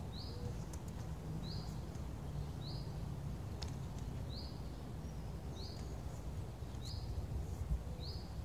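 A bird repeating one short, high chirp about once a second, over a steady low rumble.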